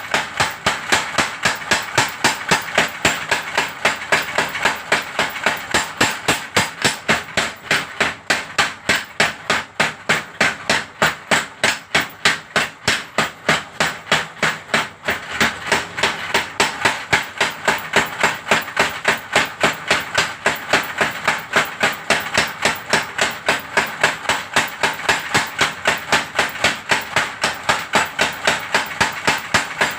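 Power hammer running, striking in a rapid, even rhythm of several blows a second.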